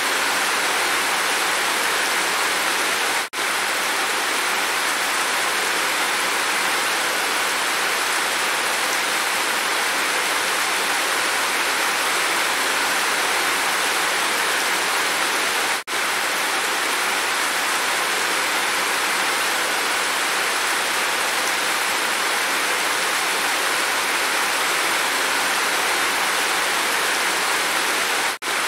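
Heavy rain falling in a steady, even hiss. The sound drops out for an instant three times: about three seconds in, about sixteen seconds in and near the end.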